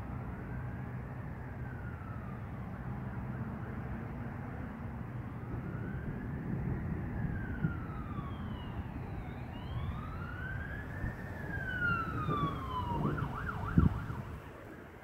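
Emergency vehicle siren wailing, its pitch slowly rising and falling every few seconds, switching near the end to a quick yelp, with one sharp loud knock just before it cuts off. A steady low rumble lies underneath.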